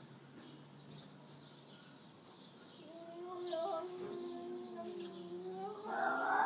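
Cat yowling: a long, wavering, drawn-out moan begins about three seconds in and swells into a louder, harsher cry near the end, the threatening wail of a cat squaring off for a fight.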